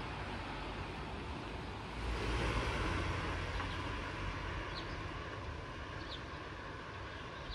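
Outdoor street ambience: a steady hiss of distant traffic with a low rumble underneath, swelling for a second or so about two seconds in.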